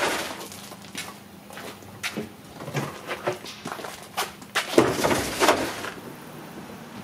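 Scattered knocks, clatters and short scuffs of sound gear being handled and carried, with footsteps.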